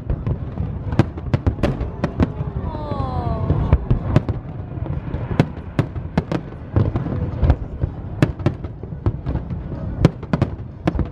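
Aerial fireworks shells bursting in quick, irregular succession: many sharp bangs and crackles over a continuous low rumble.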